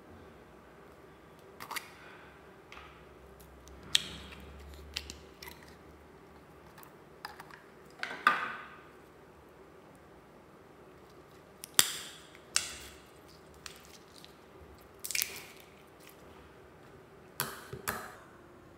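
Store-bought slime being handled with bare hands: a plastic tub opened and the slime stretched and dropped into a glass bowl, giving about ten sharp, sticky pops and squelches spread through the stretch.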